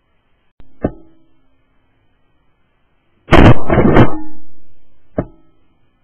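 Shotgun shots fired at flushing partridges: a sharp report under a second in, two very loud shots close together around three to four seconds in with a long echoing tail, and another report about five seconds in.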